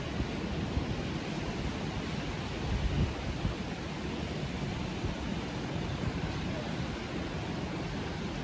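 Steady rush of sea surf with wind buffeting the microphone in irregular low gusts.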